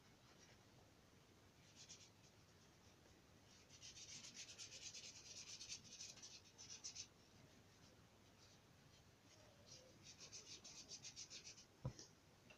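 Faint scrubbing of a paintbrush laying watercolour onto paper in quick back-and-forth strokes, in two spells of a few seconds each, then a single knock near the end.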